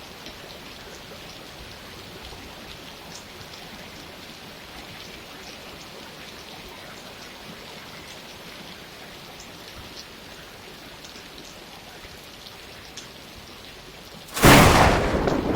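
Steady rain falling, with scattered individual drops ticking, then a sudden loud crack of thunder near the end that rumbles away slowly.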